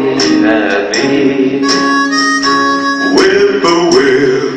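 Slow country music with a harmonica carrying the melody over guitar accompaniment.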